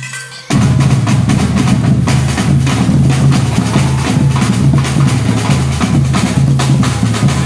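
Music with drums and a bass line, cutting in loudly about half a second in and running at a steady beat.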